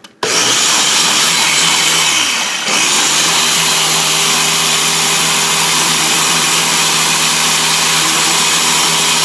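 Ninja blender's motor switched on by pressing down on its top power pod, running steadily and blending a smoothie mixture. About two seconds in its pitch sags and it briefly drops out as the pod is let up, then it starts again and runs steadily.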